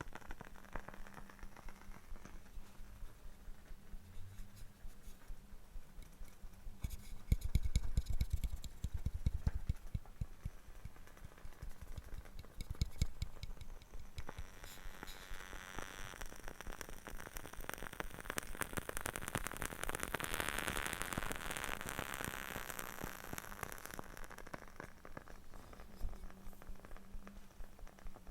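Close-miked tapping and scraping on wooden objects: scattered quick taps, a denser run of knocks with dull thumps, then a long, steady scratchy scraping.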